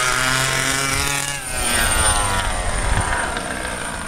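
Losi Desert Buggy XL's small two-stroke petrol engine running at speed. Its note falls, dips briefly about a second and a half in, then climbs again.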